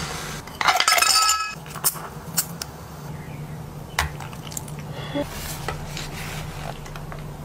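Ceramic dishes and glassware clinking on a wooden tray: a loud ringing clatter about a second in, then a few sharp taps and clinks, and coffee poured over ice in a glass.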